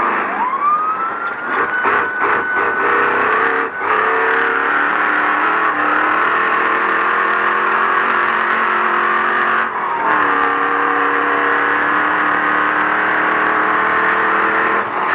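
Race truck's horn sounding in long held blasts over the engine and road noise, stopping briefly about ten seconds in and then holding again, as a warning to a slower racer ahead to let it pass. A tone rises in pitch during the first couple of seconds.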